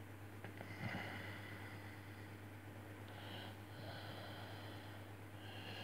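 Faint graphite pencil strokes scratching on drawing paper, in short soft spells while a sketch is drawn, over a steady low hum.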